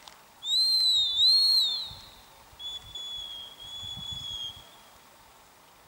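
A gundog handler's dog whistle blown in two long blasts: the first loud, its pitch wavering up and down, the second quieter and steadier. This is the kind of signal used to direct a retriever working at a distance.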